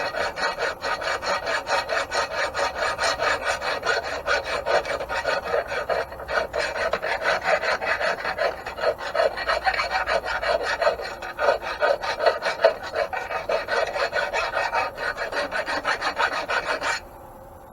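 Hand file scraping metal in quick, steady back-and-forth strokes, stopping abruptly near the end: the mill's bearing bore being filed to fit a bronze bushing.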